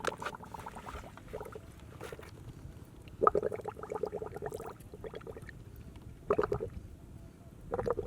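Muddy water gurgling and bubbling in short bursts of rapid popping; the longest burst starts about three seconds in, with shorter ones later.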